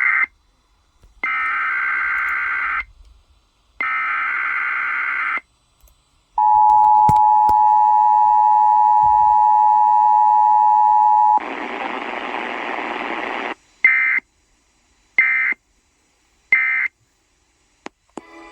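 Emergency Alert System tones: the end of one SAME header data burst and two more screeching modem-like bursts, then the two-tone EAS attention signal held for about five seconds, a couple of seconds of hiss, and three short end-of-message data bursts.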